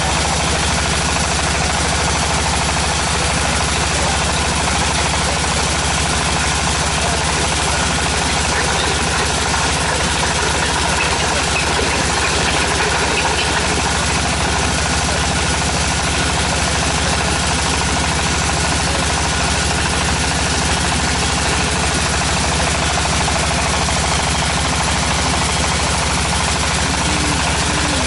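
The engine of a tractor-mounted water well drilling rig running steadily at a constant speed, with a deep, even drone.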